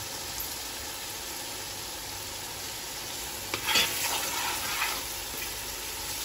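Garlic and ginger paste, ground onion and whole spices sizzling steadily in hot oil in a pan. A spoon knocks and scrapes through the mixture, stirring it, from about three and a half seconds in.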